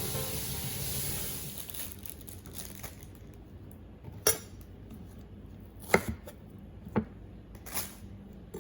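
Kitchen work sounds: a steady hiss fading out over the first two seconds, then four sharp knocks of dishes or utensils, about a second apart.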